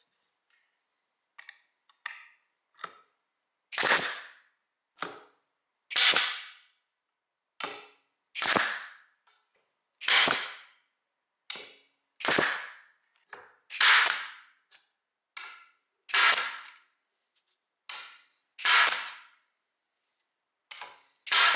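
Parkside PDT 40 G5 pneumatic stapler firing, about nine sharp shots roughly two seconds apart, each fading over about half a second. Fainter clicks fall between the shots.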